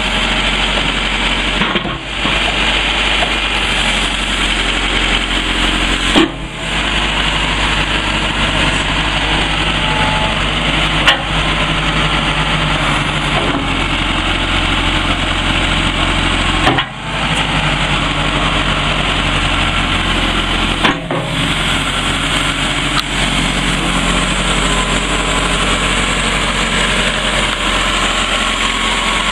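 Caterpillar 446B backhoe loader's diesel engine running steadily while the backhoe boom and bucket are worked, with a few short knocks standing out over it.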